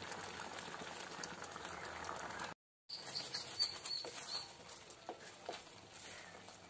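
Thick channa dal payasam simmering in a steel pan, then a wooden spatula stirring it, with soft knocks and scrapes against the pan. The sound cuts out for a moment about two and a half seconds in.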